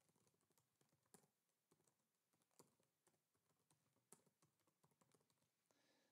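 Faint computer keyboard typing: a string of irregular keystroke clicks, with a few sharper strokes about a second, two and a half and four seconds in.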